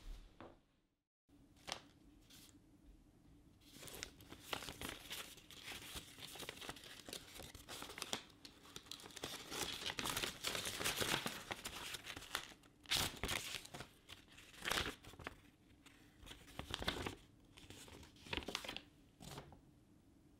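Paper being handled close up: an envelope torn open and a folded letter unfolded, with tearing, rustling and crinkling. It comes as an irregular run of crackles starting a few seconds in, with a few sharper crackles in the second half.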